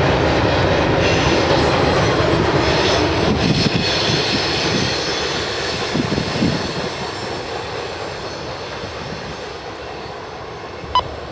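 Freight train's wheels rolling on the rails as it passes and moves away, growing steadily fainter. A short click comes near the end.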